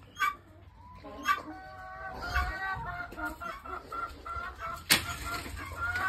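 A flock of domestic hens clucking, many short calls overlapping. Sharp clicks come about a second in and again, loudest, near the end.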